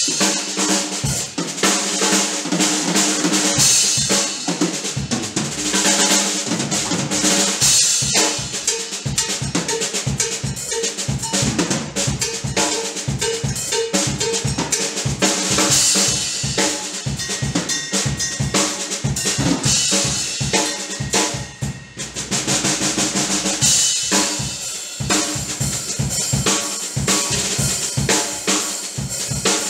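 Drum kit played with sticks in a fast groove: rapid snare and tom strokes over bass drum kicks, with Zildjian cymbals washing in and out. The playing eases off briefly about three-quarters of the way through, then picks up again.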